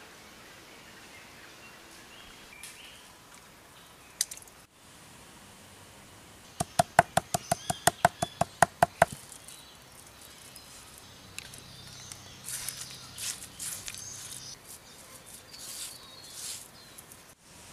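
Stone pestle pounding charcoal on a flat stone slab: a quick run of about a dozen sharp knocks, about five a second. Softer scraping and grinding follow as the black powder is worked on the stone.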